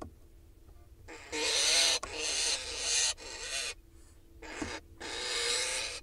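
Barn owl hissing in a string of long, harsh hisses, starting about a second in, with a short break past the middle, in alarm at mynas mobbing the nest box.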